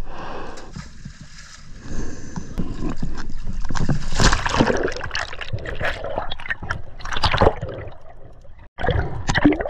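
A swimmer going into the sea and swimming: splashing water, loudest a little after the middle, then sloshing and gurgling, partly heard from under the surface.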